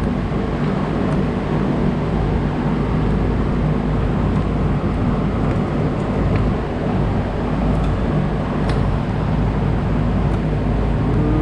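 A steady mechanical drone with a constant low hum, unbroken throughout.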